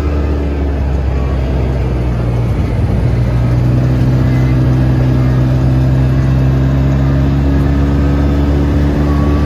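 Polaris RZR side-by-side engine running steadily under way; about three seconds in its note shifts and it grows a little louder as it picks up speed.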